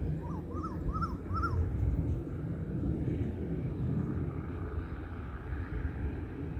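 A bird calls four short notes in quick succession, each rising then falling, in the first second and a half, over a steady low rumble.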